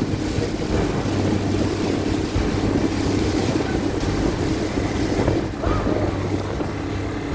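Outboard motor of an inflatable rescue boat running at a steady hum while the boat pushes through rushing floodwater, with water splashing and wind buffeting the microphone.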